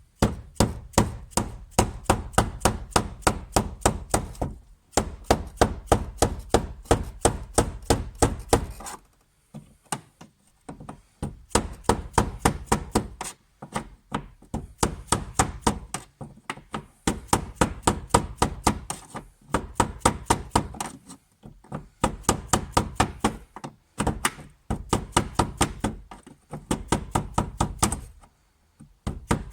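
Dead blow hammer striking a blunt punch in quick, even taps, about five a second, in runs of several seconds with short pauses, driving round the locking ring on a Citroen Saxo's in-tank fuel pump to loosen it.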